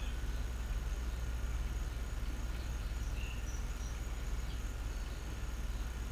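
Steady outdoor background: a low rumble with a faint steady high tone, and a few brief faint chirps near the start and about three seconds in.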